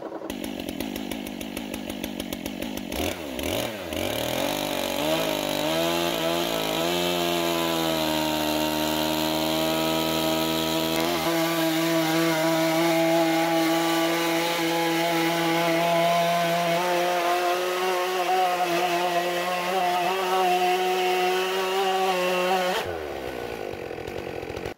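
Stihl chainsaw mounted on a Logosol F2 chainsaw mill, ripping lengthwise through a log as it is hand-cranked along. The engine revs climb over the first several seconds as the chain enters the wood, then hold a nearly steady pitch under cutting load. Near the end the revs drop sharply back down.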